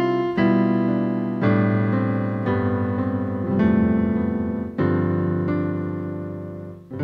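Keyboard with an electric piano sound playing slow, sustained chords, striking a new chord about once a second.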